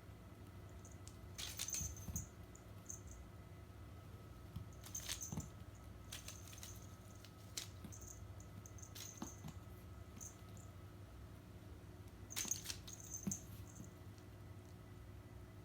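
Kitten at play knocking a small toy about: faint, scattered light clicks and brief rattles in small clusters, a few seconds apart.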